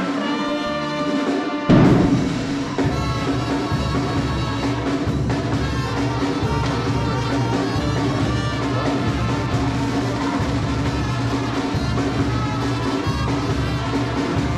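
Music with sustained held tones and a loud hit about two seconds in.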